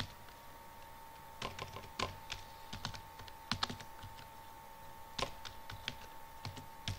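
Computer keyboard keys being typed slowly, in short irregular runs of clicks starting about a second and a half in.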